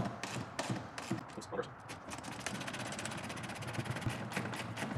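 10 mm ratchet wrench backing a nut off the bottom of a golf cart's rubber body molding: scattered metal clicks and taps, then a fast, even run of ratchet clicks about two seconds in.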